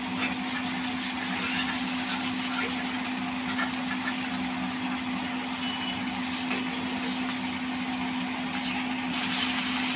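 Batter sizzling on a hot cast iron tawa, with a few light scrapes and ticks of a metal spatula working under the crepe's edge, over a steady low mechanical hum.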